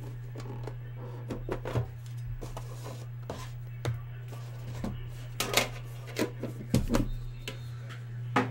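Fingers handling a thick trading card: a scattered run of small clicks and rubbing scrapes, thickest about halfway through, over a steady low hum.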